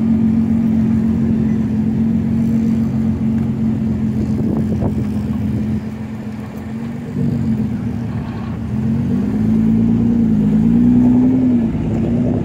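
Nissan GT-R R35's twin-turbo V6 running at a steady idle, then its revs rising and falling as the car pulls away, loudest near the end.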